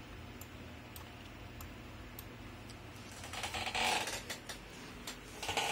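Handling noise over a low steady hum: a few faint clicks, then a rustling rattle from about three seconds in and again near the end, as the recording phone is moved from the monitor to the workbench.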